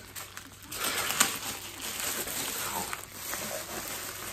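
Plastic mailer bag crinkling and rustling as it is pulled and torn open by hand, with one sharp crackle about a second in.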